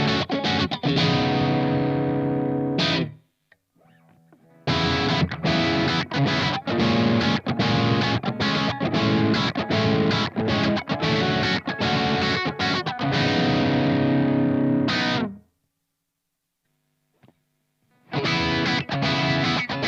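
SLX Hawk Classic 22 HSS electric guitar played through distortion in riffing phrases. It stops twice: briefly about three seconds in, and for a couple of seconds later on, with a single click in that gap, then the playing resumes near the end.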